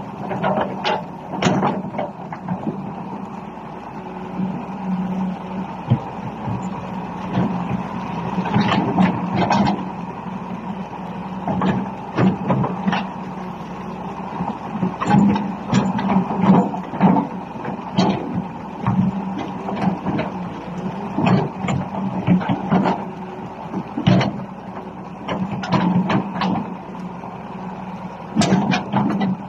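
Volvo EC290BLC crawler excavator running, its engine a steady drone under irregular sharp clanks and knocks that come in clusters.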